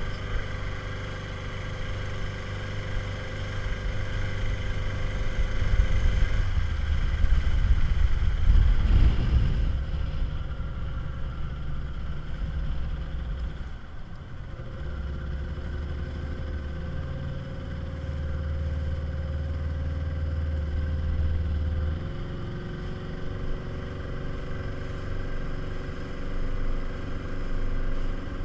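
Small inflatable speedboat's motor running under way, with wind and water noise on the microphone; it grows louder about a quarter of the way in, eases briefly around the halfway point, then runs steadily.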